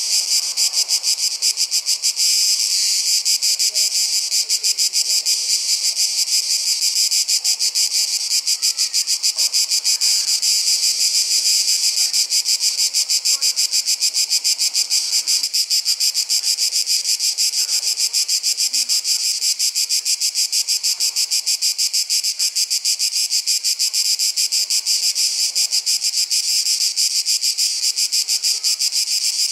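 Dense chorus of summer insects: a loud, high, rapidly pulsing buzz that keeps on without a break.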